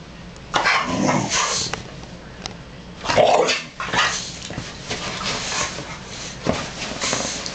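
Two pit bulls play-fighting, barking and yipping in several short bursts with pauses between.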